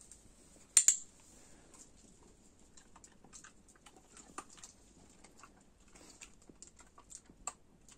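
Rottweiler puppies' claws ticking and pattering faintly on a concrete floor as they shift about, with one sharper click about a second in.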